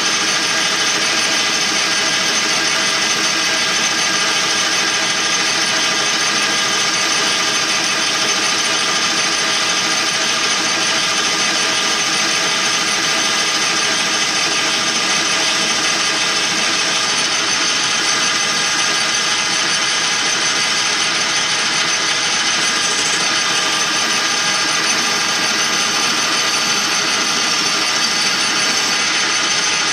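Metal lathe running steadily while the cutting tool turns down the outside of a metal tube, a constant whine of several steady tones over the machine's running noise.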